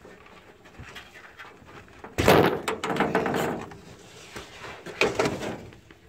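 Furnace blower-motor run capacitor being discharged by crossing its terminals with an insulated screwdriver: a sudden loud scraping clatter about two seconds in that lasts over a second, and a second shorter burst about five seconds in.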